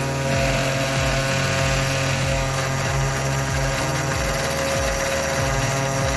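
3018 desktop CNC router running: the spindle motor hums steadily while the stepper motors whir as the gantry moves the spindle over the work.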